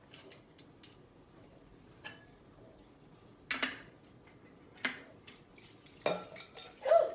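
Kitchen bowls, containers and utensils clinking and knocking against each other while fermented apples are handled for straining. A handful of separate knocks, the loudest one near the end with a short ring.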